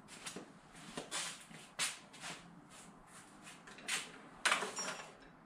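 Scattered clicks and knocks of hand tools being handled, as a small socket extension is fetched from the tool chest.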